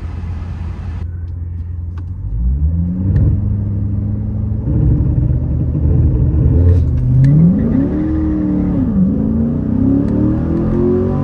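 Turbo-diesel car engine idling, then pulling away under power. Its pitch climbs, drops once about nine seconds in as it shifts gear, and climbs again.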